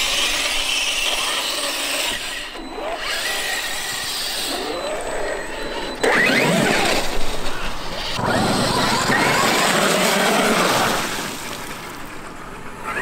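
Traxxas X-Maxx brushless electric RC monster truck driving, its motor whining up and down in pitch as it speeds up and slows, with tyre noise. It gets suddenly louder about six seconds in as it passes close by.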